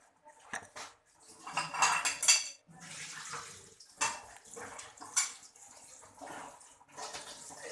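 Kitchen pots, pans and utensils clattering and clinking in a series of knocks, with the busiest run of clatter about two seconds in and sharp clinks near four and five seconds in.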